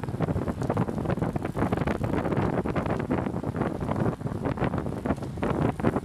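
Wind buffeting the microphone of a camera riding along with a group of road cyclists: a rough, gusting rush that swells and dips irregularly.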